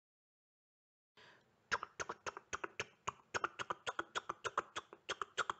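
A fast run of short tongue clicks made with the mouth, about five a second, starting just under two seconds in: a vocal sound effect.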